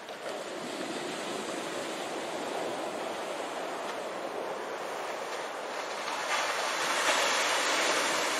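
Sea surf breaking on the beach in a steady wash of noise, swelling louder about six seconds in as a large wave breaks.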